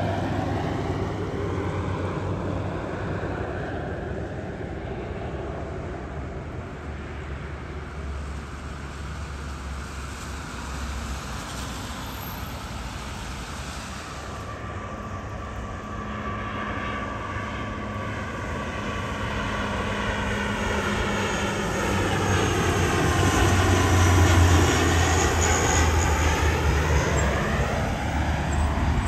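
Airliner on landing approach passing by. Its engine noise grows to its loudest about 24 seconds in and then starts to fall away, with a steady whine and a hiss that sweeps down and back up in pitch as it passes.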